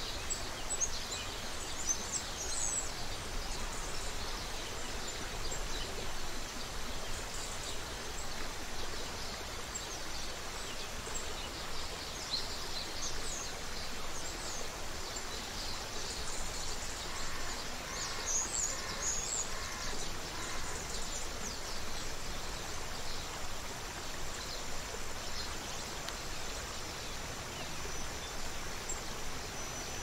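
Creek water running steadily, with small birds chirping and twittering throughout. Past the middle a bird gives a short series of about five lower, evenly spaced calls.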